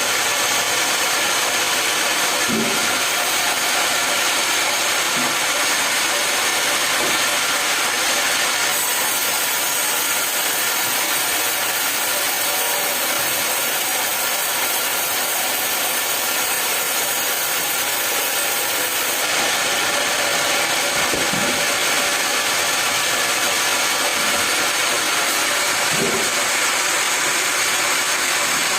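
Sawmill running and sawing through a log: a steady, loud mechanical whine and hiss with several held tones, the high hiss changing for about ten seconds in the middle, and a few faint low knocks.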